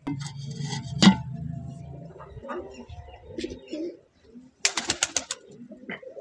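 Pigeons cooing low, with one sharp knock about a second in, then after a brief break a quick run of about six sharp clicks or wing claps.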